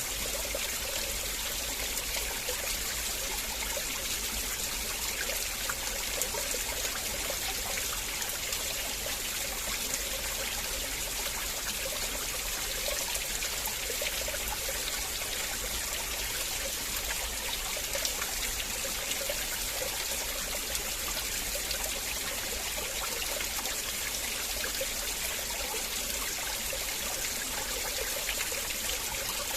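River water flowing steadily over rocks, a continuous trickling and splashing with many small droplet clicks.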